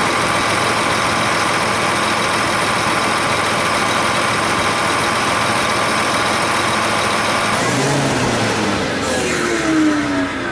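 Iveco 13-litre diesel engine of a Case IH Quad Trac 450 idling hot, giving oil pressure at the block's oil-gallery port while a sample is drawn. The sound changes about seven and a half seconds in, and a falling tone follows near the end.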